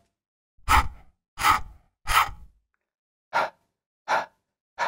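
The English /h/ sound said on its own six times, each a short breathy puff: three longer puffs in the first half, then three shorter ones near the end.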